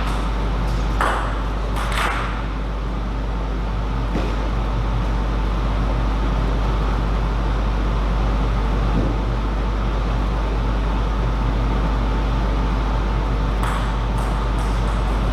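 A table tennis ball clicking sharply a few times, three hits about a second apart at the start, one more a couple of seconds later and a light run of clicks near the end, over a steady low electrical hum.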